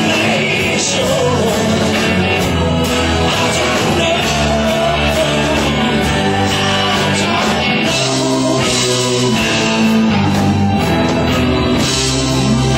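Rock band playing live: electric guitar and rhythm section with singing, loud and continuous.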